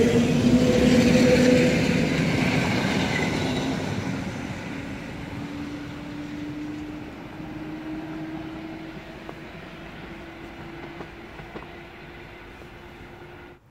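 Electric multiple unit moving away along the platform, its wheel and running noise fading steadily. A hum slowly rises in pitch from a few seconds in as the train draws off.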